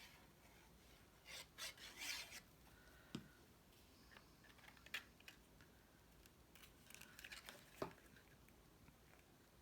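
Faint rustling and rubbing of cardstock being handled and pressed down, with a few light taps, as glued paper tabs are stuck in place.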